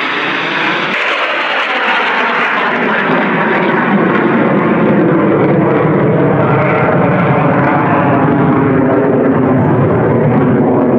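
Jet engines of US Air Force Thunderbirds F-16 fighters flying overhead: a loud, steady rushing noise that grows a little louder about four seconds in.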